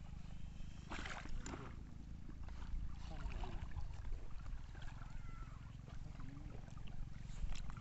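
ADCP float boat being set down from a rope onto canal water: brief splashes and knocks about a second in, over a steady low rumble and faint voices.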